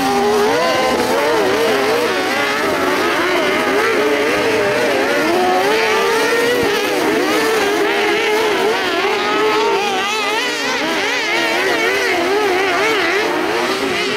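Several kart cross buggies racing together on a dirt track, their engines revving up and down in overlapping wavering notes.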